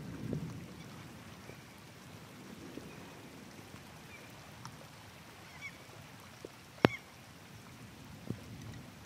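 The tail of a thunder rumble dies away in the first second or so. Then come faint, scattered bird calls over a quiet background, and one sharp click about seven seconds in.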